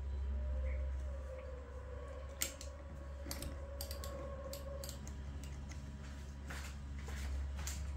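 Scattered small clicks and taps over a low steady hum.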